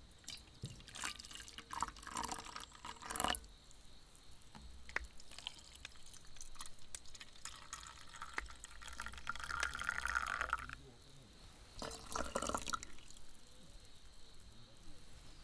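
Coffee poured from a glass server into thin metal camping mugs, splashing and trickling as they fill. There are short pours early on, a longer steady pour from about eight seconds in, and another brief pour near the end.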